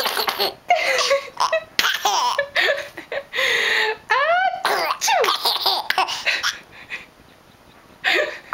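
A baby laughing hard in repeated bursts of belly laughter, with a pause about seven seconds in before the laughing starts again near the end.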